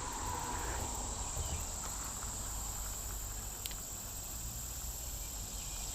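A steady, high-pitched chorus of crickets, with one faint click about two thirds of the way through.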